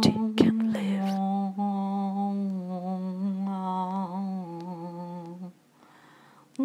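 A voice humming a slow tune in long held notes, with a few short clicks in the first second. The humming stops about a second before the end.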